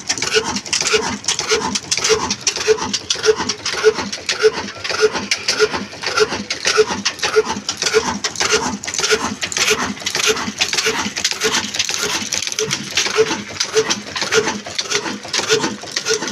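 Old Ruston Hornsby-type single-cylinder diesel engine running steadily at slow speed, an even beat of about three strokes a second over a busy mechanical clatter.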